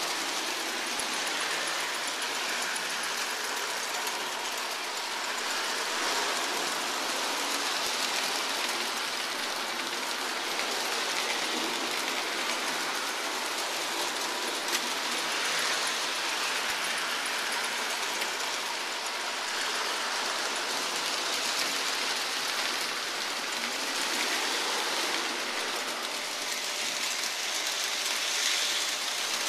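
Lionel three-rail model trains running on metal track: a steady, even rolling noise that carries on without a break.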